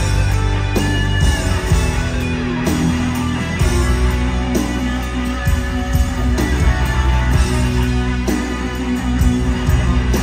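Live rock band playing, led by an electric guitar lead on a Fender Stratocaster (the Black Strat) with held, bent notes over bass and drums.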